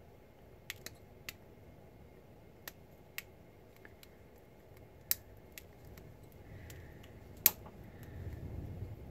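Side cutters snipping the excess component leads off a freshly soldered circuit board: a scattered series of sharp clicks at irregular spacing, the loudest about seven and a half seconds in.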